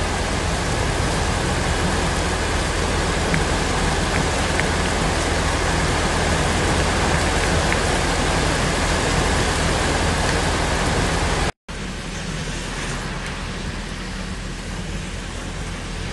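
Steady, loud rush of heavy rain and floodwater running across a flooded street. About eleven and a half seconds in it cuts abruptly to a quieter, steady downpour of rain.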